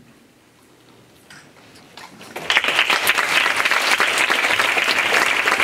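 Audience applause: a few scattered claps, then the whole audience breaking into loud, dense clapping about two and a half seconds in.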